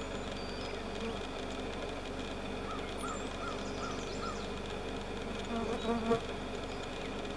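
Steady electronic hum of the Canon camera's own operating noise, picked up by its built-in microphone. A bird gives five short repeated chirps about three seconds in, and a soft bump comes near the end.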